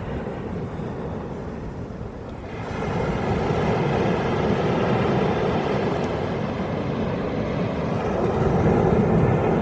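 Sea waves breaking and washing up the pebble shore of Shichiri Mihama, a steady surf noise that swells as a wave comes in about two and a half seconds in and builds again near the end.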